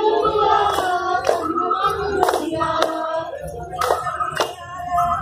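Women singing a Telugu Bathukamma folk song together, keeping time with hand claps in a steady rhythm of about one a second.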